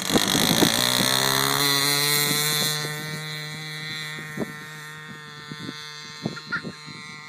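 Small model-aircraft combustion engine of a WiK Olympic radio-controlled biplane running at high throttle on its takeoff run. It is loud at first, then drops away after about two and a half seconds and stays steady and fainter as the plane climbs away.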